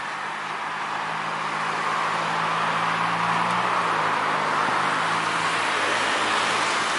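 Citilink Airbus A320-200's twin jet engines running at taxi power as the airliner turns onto the runway: a steady rushing whine with a low hum underneath, swelling a little about two seconds in.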